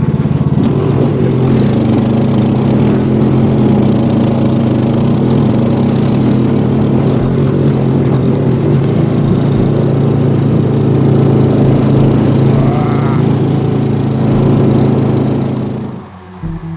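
Gas snowblower engine running steadily while clearing snow, then cutting off near the end.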